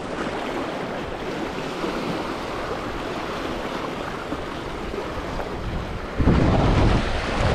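Sea surf washing on the shore, with wind noise on the microphone. The sound grows louder with a low rumble about six seconds in.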